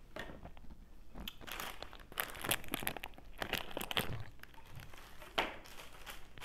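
Plastic food packaging crinkling and rustling as it is handled, in irregular crackly bursts.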